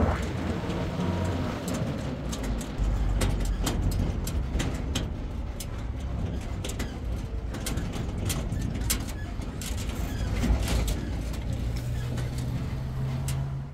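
Wheat mill machinery running: a steady low hum with irregular clicking and rattling, which breaks off abruptly.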